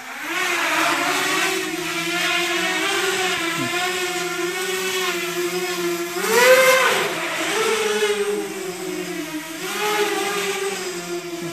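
TILT PRO v2 tiltrotor quadcopter on a 4S battery flying low: the whine of its four brushless motors and propellers wavers in pitch as the throttle changes. About six and a half seconds in, it surges sharply higher and louder, and it rises again briefly near the end.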